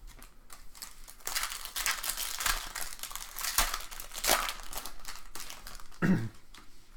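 Crinkling and tearing of a trading-card pack wrapper being handled and torn open, a dense scratchy crackle that stops about six seconds in.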